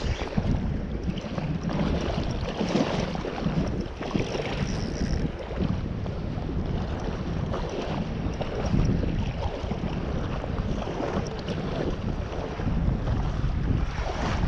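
Wind buffeting the action camera's microphone in uneven gusts, over shallow sea water lapping around a wading angler.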